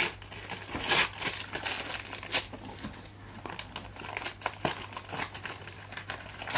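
Gift wrapping paper crinkling and rustling in the hands as a long wrapped parcel is turned over and unwrapped, in irregular bursts with a few sharper crackles.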